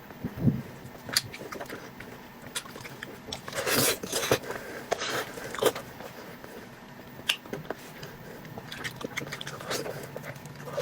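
A person biting and chewing food close to the microphone: irregular sharp clicks and short, louder bursts of chewing noise.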